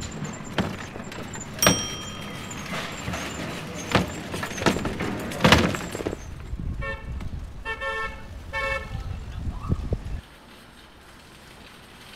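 Cargo bike riding over a city street: the box rattles and knocks over a low rolling rumble, with one bright bell-like ring a couple of seconds in. Three short horn-like toots follow around seven to nine seconds, and the riding noise stops abruptly about ten seconds in, leaving a faint street hum.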